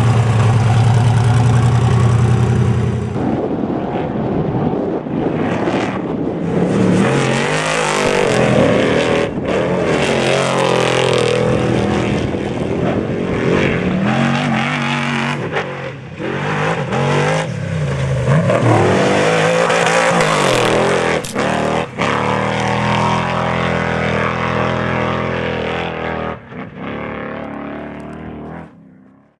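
Class 1450 desert race truck's engine running hard, its pitch rising and falling as it revs up and down with several brief lifts off the throttle; the sound dies away near the end.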